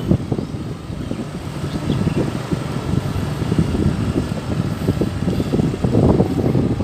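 Wind buffeting the microphone during a bicycle ride: a loud, irregular low rumble with no steady tone.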